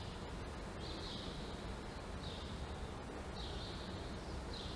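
Faint background with a small creature's high chirp repeating about every second and a quarter, each call about half a second long, over a steady low hum.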